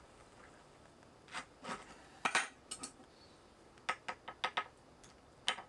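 Irregular short clicks and scrapes of hard objects against a glazed ceramic bonsai pot as soil is worked in around a freshly repotted maple, with a quick run of clicks about four seconds in.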